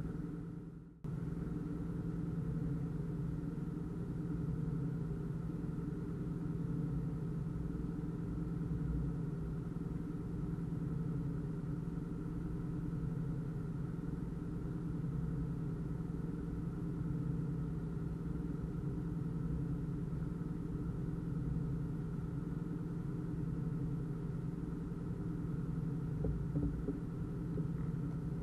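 Narrowboat engine running steadily as the boat cruises along, an even drone that briefly drops out about a second in.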